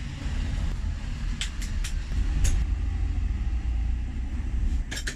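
Several sharp clicks of a plastic spoon scooping green salsa out of a plastic tub: a few in quick succession about one and a half to two and a half seconds in, and two more near the end. Under them runs a steady low rumble.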